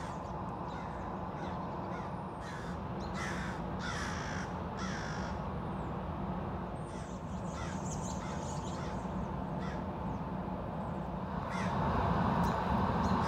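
Crows cawing, a run of short harsh calls bunched in the first half with a few more later, over a steady low background rumble.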